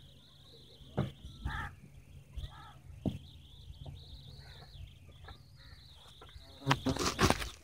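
Steady high-pitched insect chorus in the background. A few sudden bumps and rustles break through it, the loudest cluster near the end.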